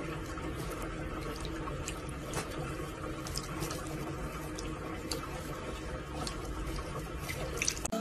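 Water running steadily from a tap and splashing over a cat's head into the sink, with a few small ticks and drips.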